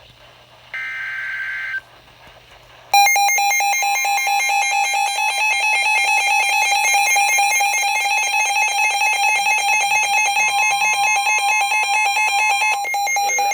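NOAA weather radio receiving a warning: a one-second burst of shrill EAS data tones, then after a short pause the radio's loud, rapidly pulsing alert alarm for about ten seconds, signalling an incoming severe thunderstorm warning.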